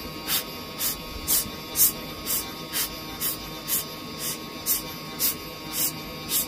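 Background music with a steady hiss-like beat about twice a second, over a faint steady hum.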